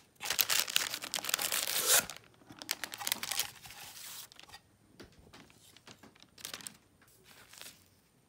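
Tissue paper rustling and crinkling as a bundle of cigars wrapped in it is lifted out of a wooden box and unwrapped. It is loudest for the first two seconds, then turns to softer, scattered rustles.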